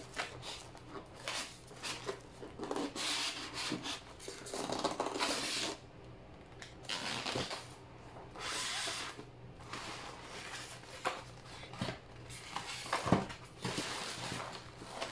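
Packaging of a boxed ice cream maker being opened and handled: irregular rustling and scraping, with several short knocks, the sharpest near the end.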